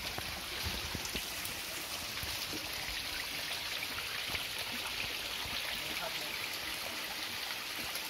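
Water from a small waterfall splashing and running down over rocks, a steady rushing hiss.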